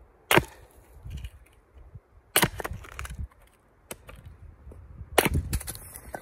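Axe splitting a piece of firewood stood on a chopping stump: three sharp cracks, about two and a half seconds apart, with lighter knocks of wood between.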